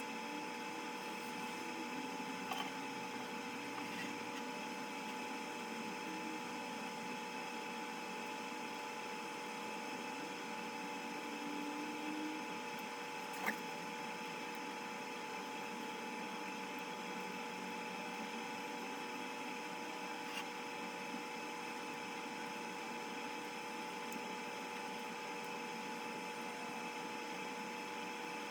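Steady mechanical or electrical hum holding several fixed tones, with a few light clicks and one sharper click about halfway through.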